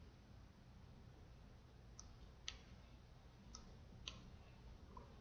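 Four faint, sharp computer mouse clicks, in two pairs about half a second apart, over a low room hum.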